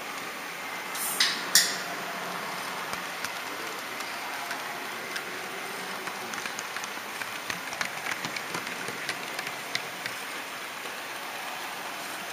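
A model train rolling along the track, heard from a camera riding on it: a steady rushing noise with light clicks of the wheels over rail joints and points, thickest in the middle. Two short sharp hisses come about a second in.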